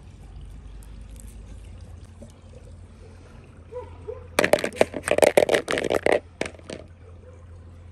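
Water splashing in a short, loud burst of many quick splashes about four and a half seconds in, lasting under two seconds, over a faint trickle of water.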